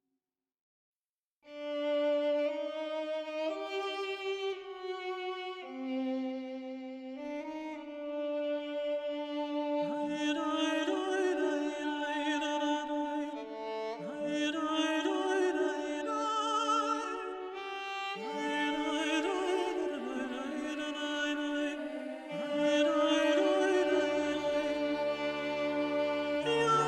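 Instrumental background music led by sustained bowed-string notes, starting after a second or so of silence and growing fuller about ten seconds in, with a low bass line joining near the end.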